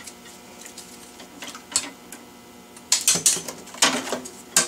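Aerogarden trellis rods clicking and rattling against a stainless steel sink and each other as they are laid into soapy water. A few light clicks come first, then a quicker run of louder clatters about three seconds in.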